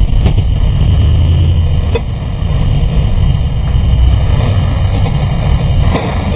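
Sprint car engine running at racing speed, heard from the camera mounted on the car as a loud, muffled, steady low drone, with a few short knocks.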